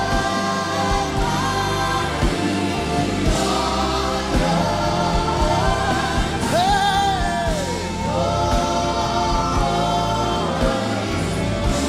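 A live gospel worship song: a choir sings long held notes over a band with a steady low beat, and the lead singer calls out "Hey" with a sliding vocal line a little past halfway.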